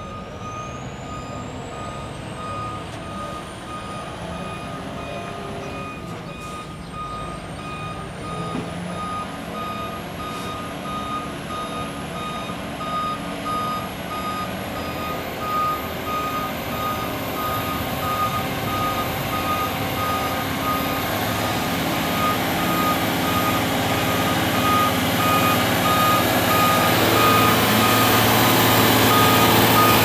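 Iveco Trakker concrete mixer truck reversing, its reverse alarm sounding a steady, evenly spaced beep. The diesel engine grows louder as the truck comes closer.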